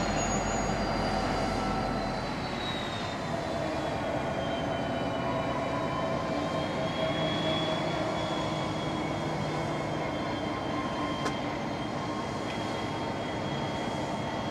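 Grain train coming to a stand behind its diesel locomotives, with a thin, high brake squeal that slides down in pitch and then holds steady. Under it is the steady rumble of the locomotives' engines running.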